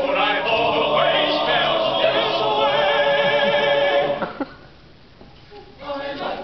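A cappella voices singing together, holding sustained notes with vibrato. They break off about four seconds in, and voices come back briefly near the end.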